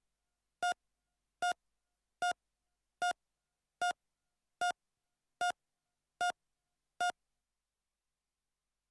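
Heart monitor beeping at a normal heart rate: short single-pitched beeps, a little more than one a second, in a steady rhythm. The beeping stops about seven seconds in.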